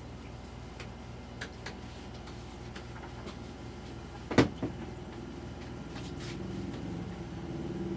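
A single sharp knock about four seconds in, with a few lighter clicks around it, over a steady low hum.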